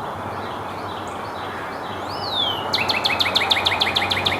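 Northern cardinal singing: one down-slurred whistle about two seconds in, then a fast run of repeated notes, about eight a second, over steady forest background noise.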